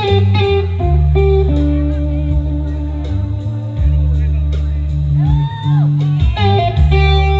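Live rock band playing, with electric guitar holding long bent notes over heavy bass and drums.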